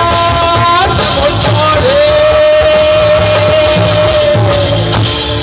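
A man singing a Bengali song into a microphone over a PA with a live band backing him. About two seconds in he holds one long steady note for about three seconds.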